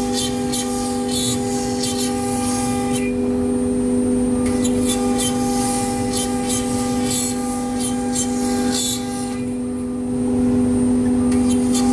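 CNC cutting machine working a decorative partition panel: a steady machine whine with a high, hissy cutting noise that pauses twice, about three seconds in and again about nine seconds in, before starting up again.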